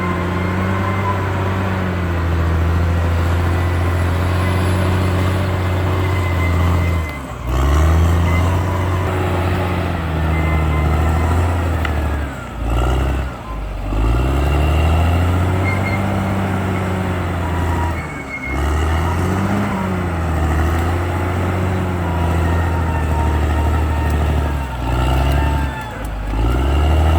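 Caterpillar D6R XL bulldozer's diesel engine running hard, its engine speed sagging and picking up again several times.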